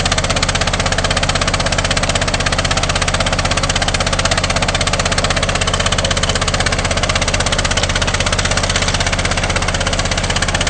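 Small gold dredge's engine and pump running steadily with a fast even pulse, over water rushing through a bucket classifier.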